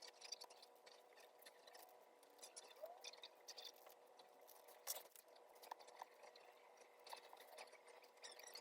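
Small scissors faintly snipping through the excess lace of a lace front wig in scattered, irregular cuts, with one sharper click about five seconds in.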